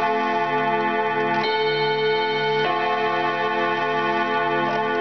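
Antique ODO ten-gong carillon chime wall clock playing a chime tune: its hammers strike the tuned rod gongs one note at a time, slowly and a second or more apart, and each note rings on under the next.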